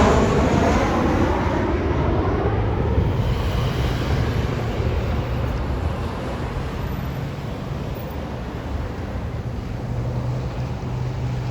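Jet noise from an arriving Boeing 737-700 with CFM56 turbofans. It is loudest at the start, with a falling whine, and fades steadily as the aircraft moves away.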